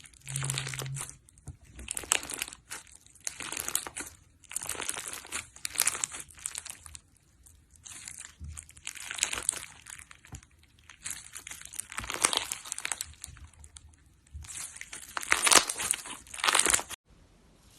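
Slime being worked by hand, making crinkly, crackling squelches in repeated bursts about once a second. The sound stops abruptly near the end.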